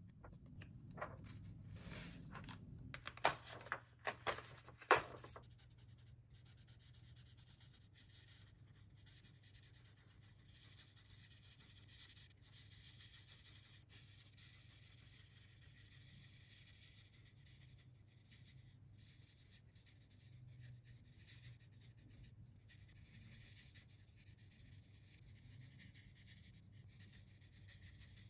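Paper pages of a coloring book being turned, with a few sharp slaps in the first five seconds. Then the felt tip of an Imagine Ink marker rubs steadily back and forth on the paper.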